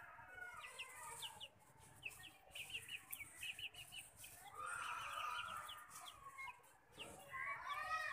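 Chickens clucking, with a longer rooster-like call about halfway through and another near the end, and quick high chirps of small birds in between.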